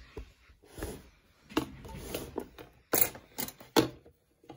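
Irregular clicks, knocks and rattles of a small camera tripod being handled and set up, with the phone being fitted to it. The sharpest knocks come about three seconds in and again just before four seconds.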